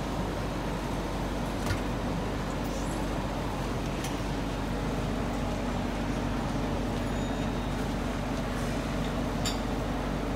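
Steady mechanical hum with background noise, and a few faint clicks.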